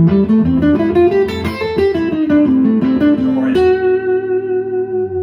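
Semi-hollow electric guitar playing a quick single-note minor-key solo line over a looped A minor chord, ending on one note held from about three and a half seconds in, fading at the close.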